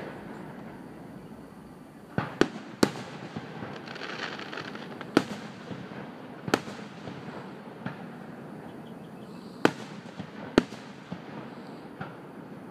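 Aerial firework shells bursting: a series of sharp bangs at irregular intervals, starting about two seconds in, some coming in quick pairs.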